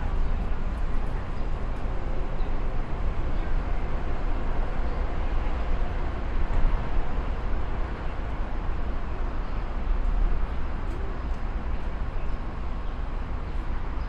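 Steady low rumble of background ambience, even throughout with no distinct events standing out.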